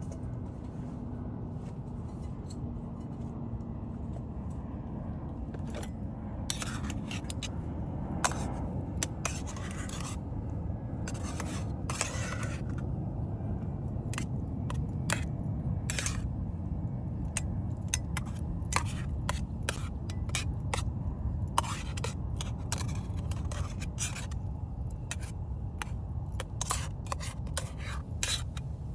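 Metal tongs and a spatula scraping and clicking against a lightweight camping frying pan as food is turned, starting about six seconds in and going on in quick irregular strokes. A steady low rush runs underneath.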